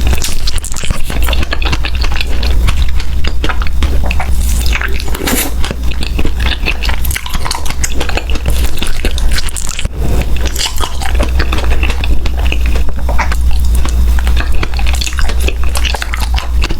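Close-miked eating sounds: biting and chewing with many small crackling clicks, over a steady low hum.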